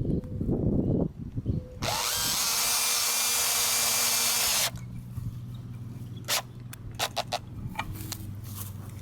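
Power drill driving a screw into plywood: it spins up with a rising whine about two seconds in, runs steadily for about three seconds and stops, followed by a few light clicks and knocks.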